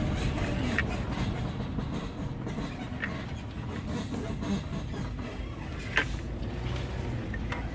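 Porsche Cayenne suspension squeaking: four short, sharp squeaks a couple of seconds apart, the loudest about six seconds in, over a low vehicle rumble. The upper control arms have already been replaced and the squeak remains, so the lower control arms are the next suspect.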